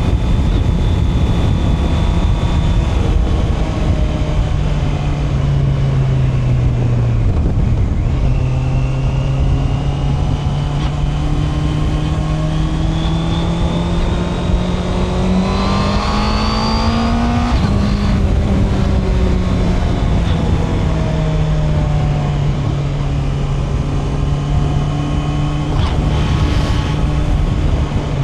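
Honda CB650R's inline-four engine under way, with wind rushing on the microphone. The revs drop about seven seconds in, then rise slowly for about ten seconds, fall away sharply, and settle into steady cruising.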